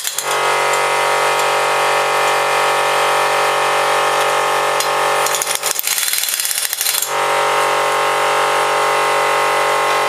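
A steady machine hum, broken about five seconds in by a rougher, noisier stretch of a second or two before the hum returns.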